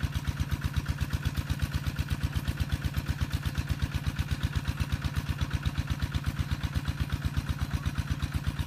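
Small engine idling steadily, with an even pulsing beat of about eight a second.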